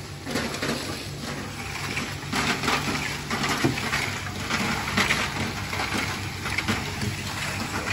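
Kerupuk crackers being stirred with a long metal scraper through hot sand in a large tilted frying pan: gritty scraping of sand on the pan with irregular crisp rattles and clatters of the crackers, over a steady low hum. This is frying the crackers in sand instead of oil.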